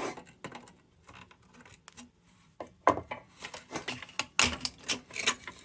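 Metal lantern parts being handled, giving scattered light clicks and clinks, with sharper clinks from about three seconds in.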